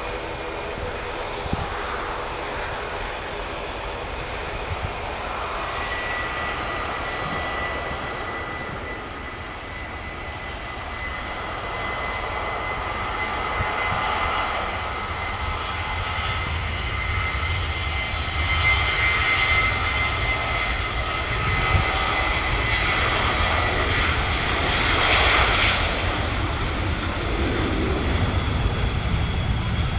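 Boeing 737 jet engines running at takeoff power: a low rumble with a steady high whine. It grows louder through the second half and is loudest near the end.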